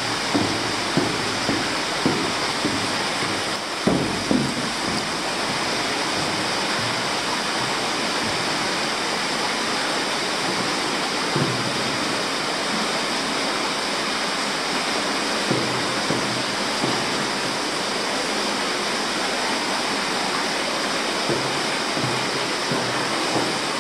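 Steady rushing of running water inside a cave, with soft footsteps on a metal walkway, about two a second, in the first few seconds and again now and then later.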